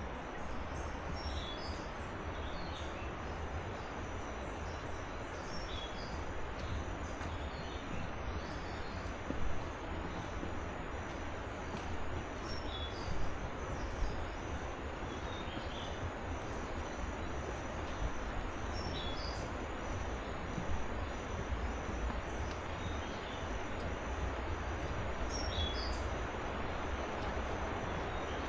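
A river rushing as a steady wash of noise with a low rumble beneath, and birds giving short chirps here and there over it. A faint high note repeats evenly, a little more than once a second, through the second half.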